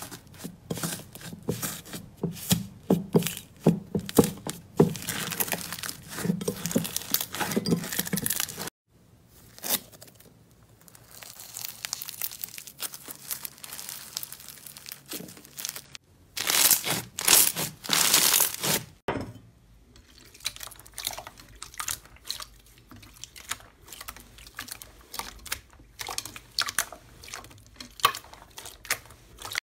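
Hands pressing, stretching and kneading slime: a dense run of crackles, pops and squishy clicks, changing in character at cuts about 9, 16 and 19 seconds in. At first it is fingers pressing a crusted iceberg slime, crackling as the dried top layer gives; near the end it is soft clear slime squished in a bowl.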